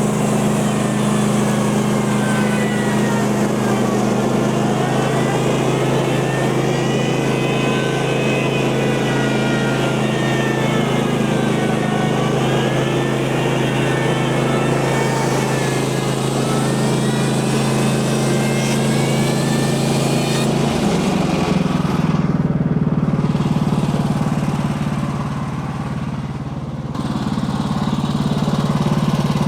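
Gas engine of a Woodland Mills portable bandsaw sawmill running steadily under load as the band blade cuts through a white oak log, with a wavering high whine above the engine. About twenty seconds in the engine note changes and the whine drops away as the cut finishes.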